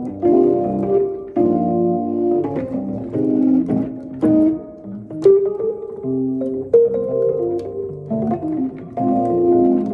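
Fender Rhodes electric piano playing sustained chords, struck roughly once a second and left to ring.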